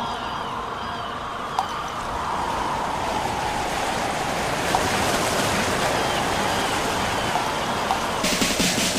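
Rushing wind, a steady hiss that slowly swells louder and brighter, with faint high chirps now and then.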